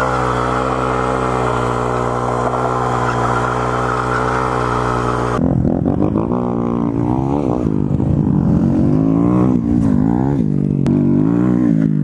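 Honda Grom's small single-cylinder engine running at a steady speed under a steady hiss. About five seconds in the hiss cuts off and the engine's revs rise and fall repeatedly.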